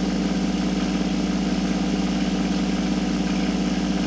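Vibratory case tumbler running with a steady hum as its cleaning media churns under the lid.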